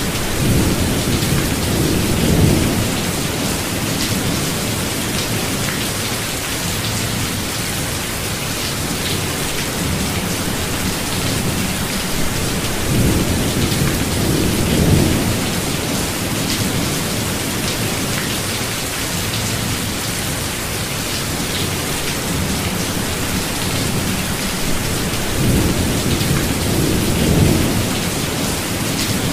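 Medium rainstorm: steady rain hissing throughout, with thunder rumbling low three times, near the start, around the middle and near the end.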